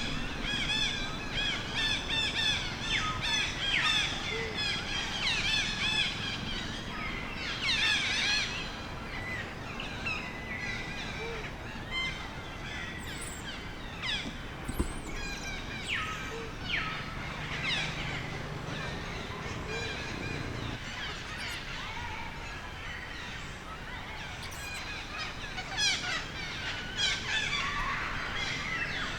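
A baby monkey's high-pitched, wavering cries and squeals, coming in bouts: a dense run at the start, a loud burst about a quarter of the way in, scattered cries in the middle, and another run near the end.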